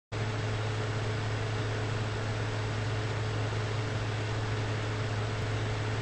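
Steady low electrical hum under a constant hiss, with a faint higher tone running along with it.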